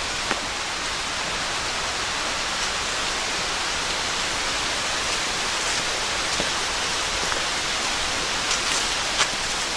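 Steady rushing of water from a nearby creek, an even hiss with no let-up, with a few faint clicks near the end.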